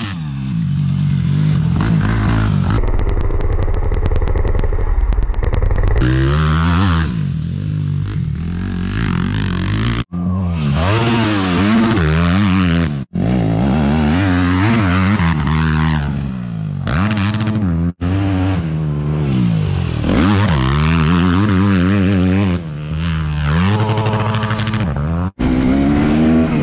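Yamaha YZ250F four-stroke single-cylinder dirt bike engine revving up and falling back repeatedly under hard acceleration, in a run of short clips that cut off abruptly about four times.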